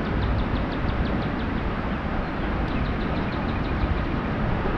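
Spinning reel being cranked, clicking evenly about six or seven times a second in two spells, over a steady low rumble.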